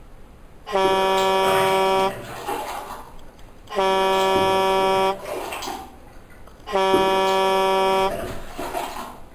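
A horn sounding three long blasts of one steady pitch, each about a second and a half long and evenly spaced.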